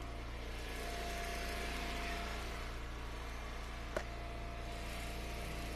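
Small gas engine of a hydraulic log splitter running steadily, with a faint steady whine over it and a single short knock about four seconds in.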